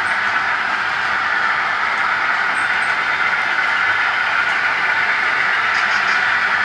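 Model freight train of piggyback flatcars rolling past on the layout track, with a steady rolling noise of the wheels on the rails and a few faint light ticks.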